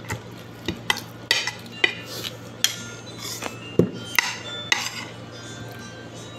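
Metal spoon and fork clinking and scraping against a plate while eating, about nine sharp clinks in the first five seconds.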